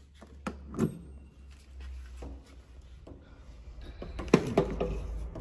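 Two light plastic clicks as an EV charging connector is unlatched and pulled from a Tesla Model 3's charge port, then a sharp knock with brief rattling about four seconds in as the connector and cable are handled.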